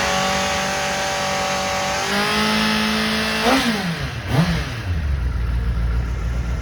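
Superbike engine on its stock exhaust, cold-started and held at a raised warm-up idle; the note steps up slightly about two seconds in, then drops with a quick blip of the throttle and settles to a lower, deeper idle.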